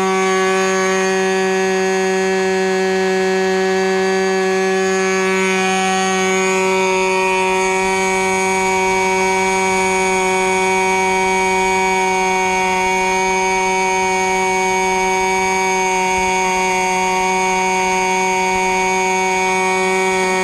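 Raduga R10R 10 cc glow-plug model aircraft engine, fitted with a muffler, running at a steady high speed on a thrust test stand while it turns a propeller: a loud, even, high-pitched drone that holds its pitch throughout.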